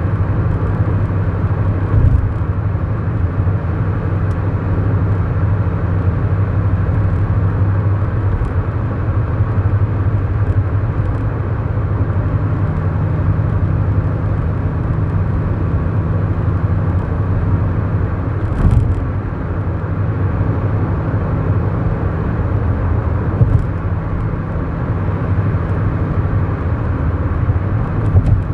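Cabin sound of a 2011 Kia Morning's 999 cc four-cylinder SOHC engine: a steady engine drone with tyre and road noise while driving at a steady pace. A few brief thumps break through, the strongest about two-thirds of the way in.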